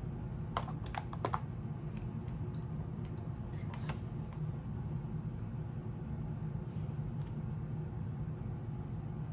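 Several short, sharp clicks over a steady low hum: a quick cluster in the first second and a half, a few more up to about four seconds in, and one more near the end.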